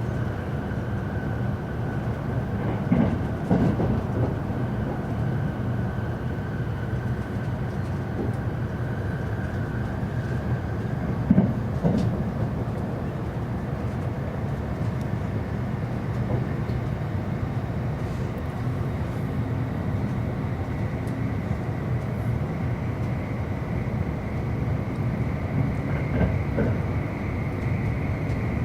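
JR East E259 series Narita Express electric train running at speed, heard from inside the carriage: a steady rumble of wheels on track with a thin whine that rises slightly in pitch near the end, and a couple of louder knocks along the way.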